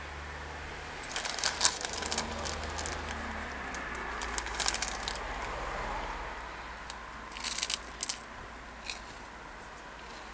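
A plastic snack wrapper crinkling as it is handled close to the microphone, in a few short bursts of crackling, over a steady low hum.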